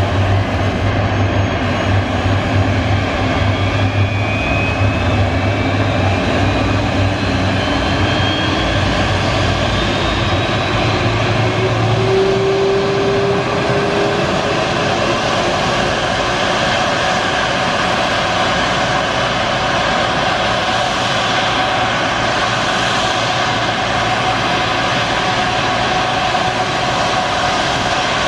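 Jet airliner noise on the apron: a loud, steady turbine whine and rumble. Tones rise slowly in pitch over the first dozen seconds, as from an engine spooling up during pushback.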